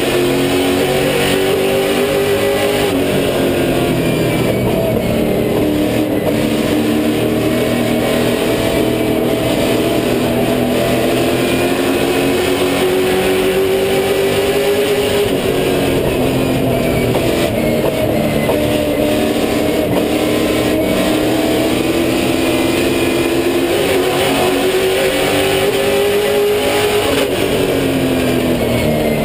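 Super late model race car's V8 engine at racing speed, heard from inside the cockpit. Its pitch climbs slowly, then drops sharply three times about twelve seconds apart as the car slows for the corners of each lap.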